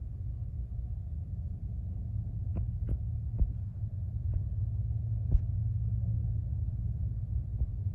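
Low, steady throbbing rumble of an idling engine, with a few faint clicks about three to five seconds in.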